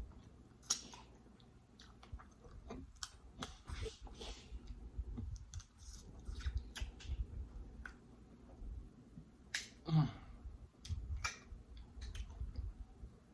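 Close-miked eating: a person chewing food with wet mouth sounds and many scattered sharp clicks and smacks, and a brief rising hum of enjoyment about ten seconds in.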